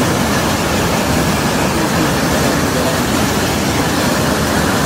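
A waterfall pouring over rocks: a loud, steady rush of falling water.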